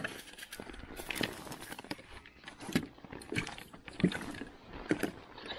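Irregular knocks and rustling of clothing and gear handled close to a body-worn camera on the ice, with a few sharp knocks roughly a second apart.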